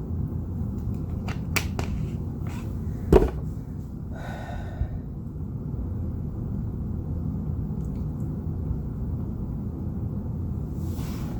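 A person hiccuping: one sharp hiccup about three seconds in, the loudest sound here, with a few faint clicks shortly before it, over a steady low background noise.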